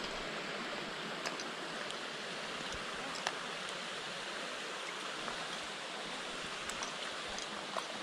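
Small, shallow forest creek trickling and babbling steadily below, with a few faint clicks scattered through.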